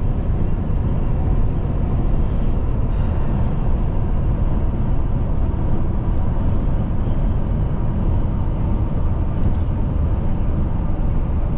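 Steady road noise of a truck at highway speed, heard from inside the cab: a constant low drone of tyres and engine.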